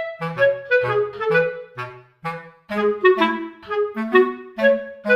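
Background music: a clarinet-like woodwind playing a bouncy melody of short detached notes over a light bass line.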